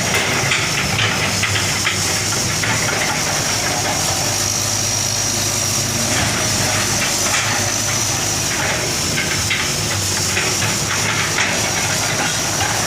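Hitachi hydraulic excavator's diesel engine running steadily, with a thin high steady whine over it and irregular clanks and knocks as it works.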